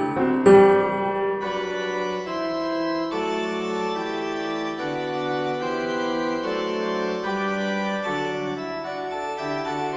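Background music: held keyboard chords, organ-like, changing every second or so, with a brief loud note about half a second in.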